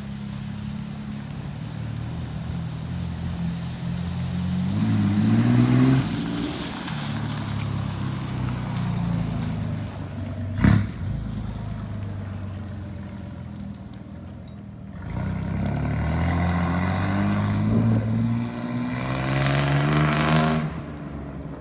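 A motor vehicle engine running and accelerating, its pitch rising and dropping back several times as it shifts up through the gears. A single sharp click comes about eleven seconds in.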